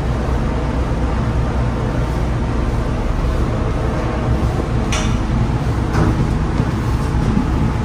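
Steady low machinery hum, with two short, sharp knocks about five and six seconds in.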